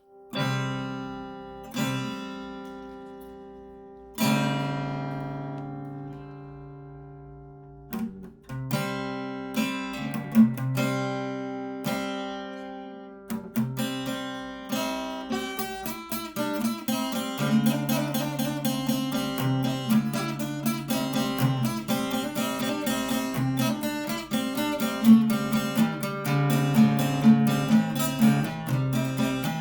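Acoustic guitar music: a few single strummed chords are left to ring out and fade, then the playing picks up into a steady, rhythmic strumming pattern.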